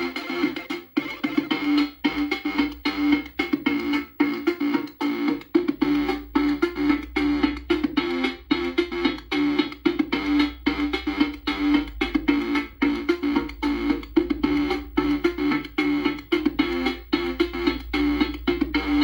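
Commodore 64 chiptune music played through a SIDKick Pico SID-chip replacement: synth voices over a steady beat of drum hits, with a deep bass line coming in about six seconds in.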